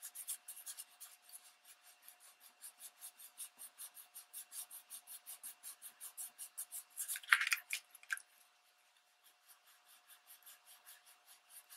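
A soft cloth rubbed rapidly back and forth over damp, embossed magazine paper, about five scratchy strokes a second, with a few louder scrapes about seven seconds in and fainter strokes near the end. The rubbing is lifting the ink off the raised areas of paper sprayed with a water and rubbing-alcohol mix.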